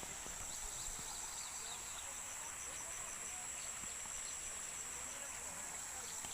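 Steady high-pitched drone of an insect chorus, with faint rapid chirping pulses over it.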